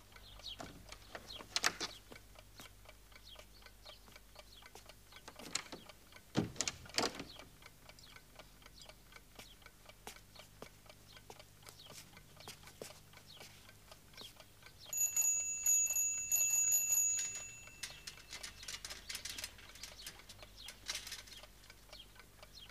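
A mechanical clock ticking steadily, with an alarm clock's bell ringing for about three seconds past the middle. A few louder knocks fall in between.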